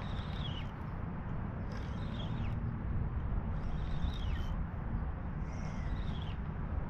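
Wind rumbling on the microphone, with a short high squeak falling in pitch repeated about five times, roughly every one and a half to two seconds.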